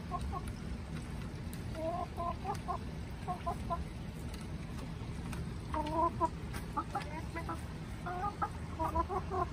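Backyard hens clucking: short pitched calls in several clusters, sparse at first and busier in the second half.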